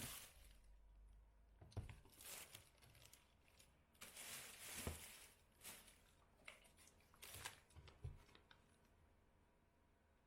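Faint handling sounds: a series of brief rustling swishes with a few soft knocks, about eight swishes in all.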